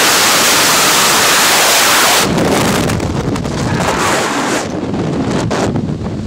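Freefall wind rushing over a skydiver's camera microphone: a steady loud hiss that, after about two seconds, turns to a lower, uneven buffeting as the parachute deploys and opens.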